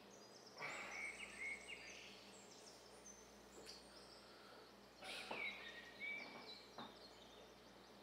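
Quiet outdoor ambience with two faint clusters of short bird-like chirps, about half a second in and about five seconds in, and a few faint clicks.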